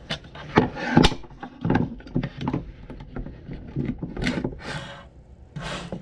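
Screwdriver and a truck door handle's lock parts being worked by hand: an irregular run of clicks, knocks and scrapes as the lock cylinder is pried and freed from the handle.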